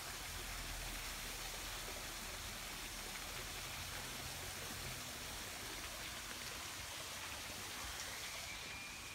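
A steady, even hiss with no distinct events, easing off slightly near the end.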